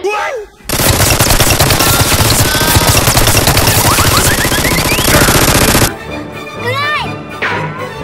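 Rapid automatic gunfire sound effect, one continuous dense burst starting about a second in and cutting off suddenly near six seconds, followed by quieter swooping pitched sounds.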